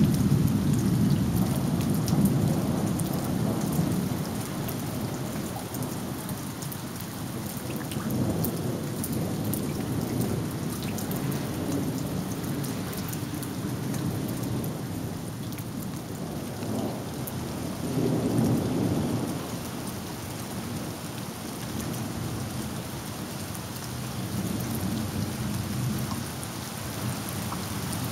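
Steady rain with many separate drops, under rolling thunder: a loud peal right at the start rumbles off over about four seconds, then weaker rumbles come about eight, eighteen and twenty-five seconds in.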